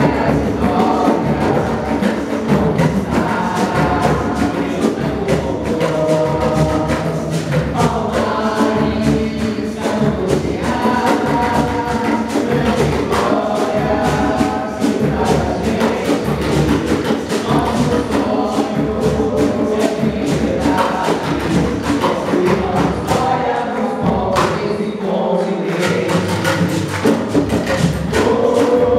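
Choir singing an Afro-Brazilian entrance hymn, accompanied by hand drums and percussion keeping a steady beat.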